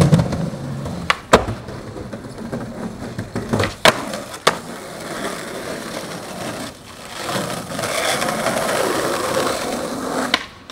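Skateboard on asphalt: the board clacks sharply several times in the first half, and its wheels roll over the rough pavement in between. In the second half the rolling runs steadily as the board cruises.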